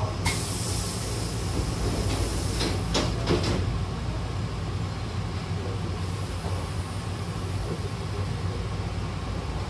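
Hankyu train's double sliding doors closing: a hiss of air from the door engine starts about a quarter second in, then a few knocks as the door leaves meet about three seconds in. After that the stopped train gives a steady low hum.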